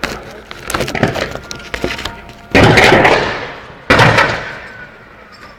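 Quick crackling pops in the first two seconds, then two loud explosive bangs about a second and a half apart, each trailing off in a long echo.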